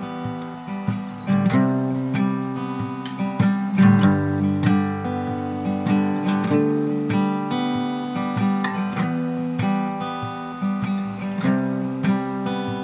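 Background music: acoustic guitar playing plucked and strummed notes, with no singing.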